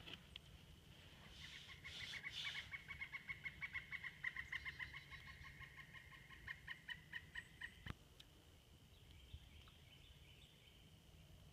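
A small animal or bird calling faintly: a fast run of short, evenly spaced notes, several a second, starting about a second in and lasting about six seconds. A single sharp click comes near the end of the run.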